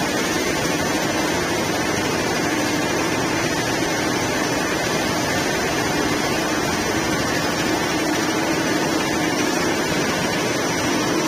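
Machinery of a PVC flooring annealing line running steadily: an even mechanical noise with a constant low hum, unchanging throughout.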